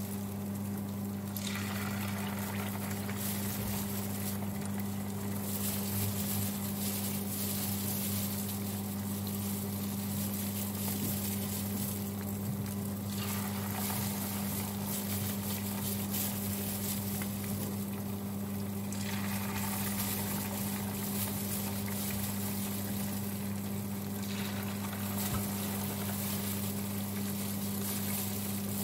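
Oil sizzling and bubbling steadily as tofu balls deep-fry in a pan, over a steady low electrical hum.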